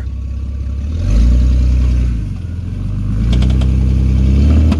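Jeep Cherokee XJ engine revving hard under load in two pushes as the rig strains in mud, with a short clatter partway through the second. The driver takes it for the locker slipping.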